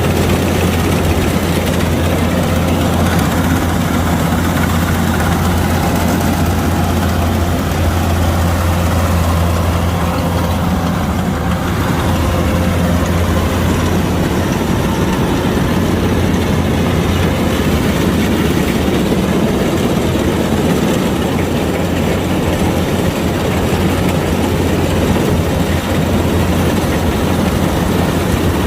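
Kubota DC-105X rice combine harvester's diesel engine running at a steady, loud, even drone.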